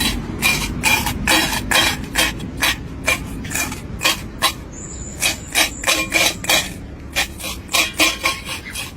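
Repeated rasping, scraping strokes, about two to three a second, over a steady low rumble, with a brief high whistling tone near the middle.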